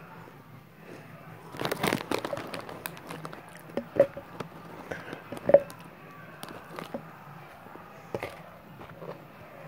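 Crinkling and crunching of a bag of Cheetos and the crunchy Cheetos being handled and chewed, in irregular crackly bursts. The bursts are densest a couple of seconds in, with a few sharper cracks after that.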